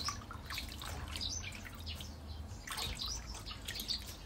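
Tap water pouring and splashing into a stainless steel sink of water while leafy greens are rinsed and lifted out by hand; the splashing is uneven.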